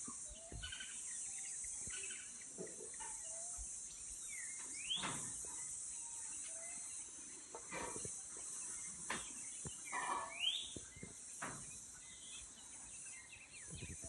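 Cicadas (chicharras) buzzing in a steady, high-pitched drone, with a bird giving a rising call twice, about five seconds apart, and a few faint knocks.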